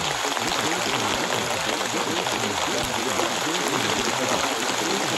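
Steady rain noise, evenly hissing, with a low jumble of many overlapping spoken voices mixed beneath it: layered affirmations of a subliminal audio track.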